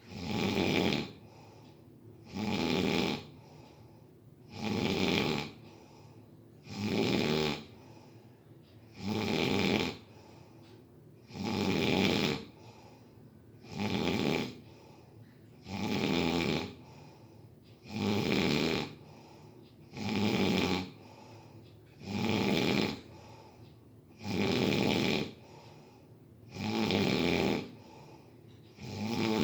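Steady, regular snoring: one snore about every two seconds, each lasting about a second, with much quieter breathing in between.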